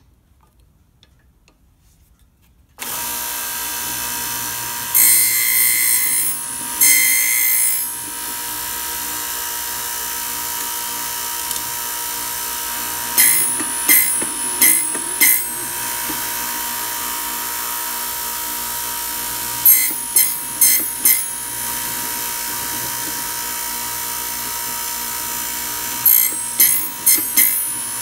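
Key-cutting machine's motor switches on about three seconds in and runs steadily, while its cutter grinds into an Abloy DiskLock key blank in short bursts: two longer cuts, then clusters of quick cuts as the key is cut notch by notch.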